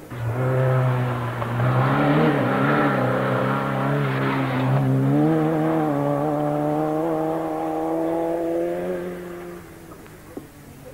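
Rally car engine revving hard on a gravel forest stage as the car approaches and passes. The engine note wavers, with a rush of noise on top for the first five seconds, then dips briefly and climbs steadily in pitch before fading away about nine and a half seconds in.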